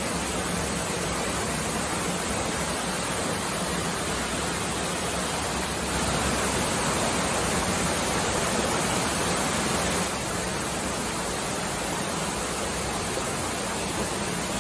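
A mountain waterfall and the rocky stream below it rushing: a steady, even wash of water noise, a little louder from about six to ten seconds in.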